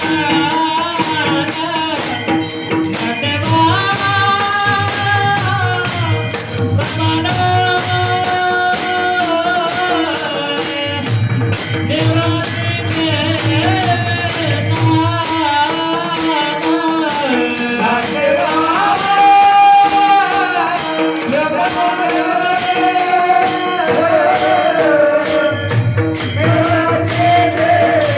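A male devotional singer sings a slow, ornamented Marathi bhajan tune, accompanied by a pakhawaj drum and hand cymbals keeping an even rhythm over a steady held drone.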